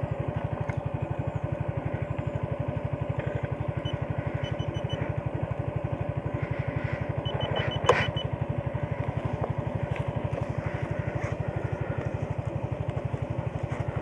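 Automatic motor scooter's single-cylinder engine idling steadily at a fast, even putter. A single sharp click about eight seconds in.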